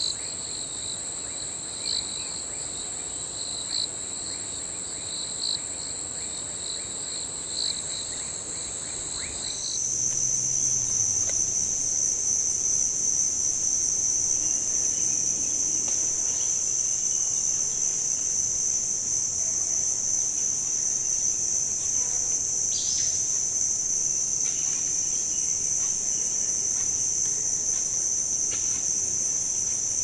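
Insect chorus: a steady high-pitched trill with a fainter pulsing layer below it, which about ten seconds in gives way to a louder, slightly lower continuous whine.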